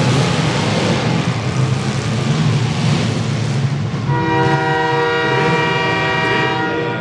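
Demolition derby car engines running loud, then about four seconds in a multi-note air horn, like a train horn, sounds a steady chord for about three seconds over the engine noise.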